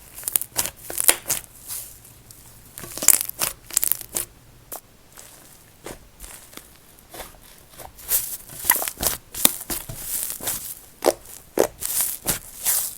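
Slime being squished, stretched and pressed by hand, giving irregular bursts of crackling, sizzling and popping as air pockets burst.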